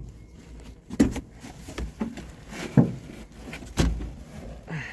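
A few dull thumps and bumps with shuffling in between as a person moves about inside a small aircraft's cramped cabin. The sharpest knock comes just under three seconds in.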